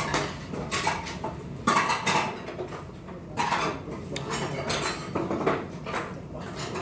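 Metal chopsticks and a metal spoon clinking and scraping against a bowl and dishes during eating, a series of irregular clinks.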